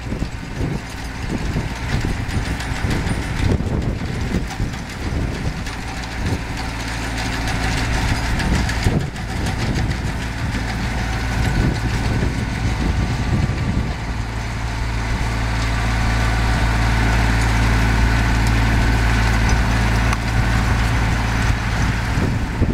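Kubota compact tractor engine running steadily under load, driving a PTO-driven rotary row tiller that churns through soil. It grows a little louder and steadier about two-thirds of the way through.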